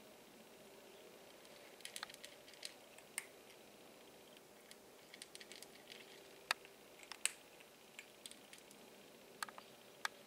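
A cat crunching dry kibble from a metal bowl: faint, irregular crunches and clicks in small clusters.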